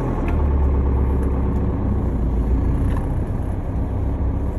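A vehicle driving: a steady low rumble of engine and road noise as it moves through a junction.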